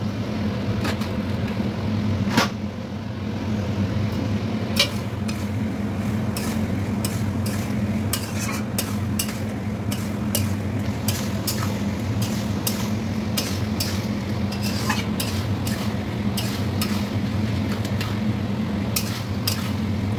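Metal spatula stirring and scraping a stir-fry in an aluminium kadai, with frequent sharp clinks against the pan, over a light sizzle and a steady low hum.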